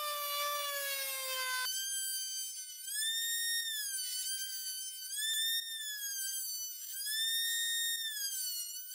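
Electric router mounted under a router table, running with a high whine as a wooden strip is fed past the bit. The pitch jumps up sharply near the start and then dips and recovers several times as the cut loads the motor.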